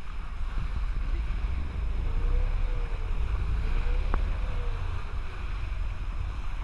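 Motorboat underway: wind buffeting the microphone over a low rumble and water rushing and splashing along the hull. A single sharp click about four seconds in.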